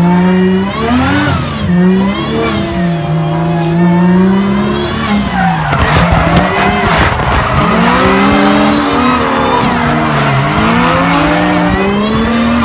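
Drift car engine revving up and down again and again over tyres squealing and skidding, heard from inside the car's cabin as it drifts close behind another car.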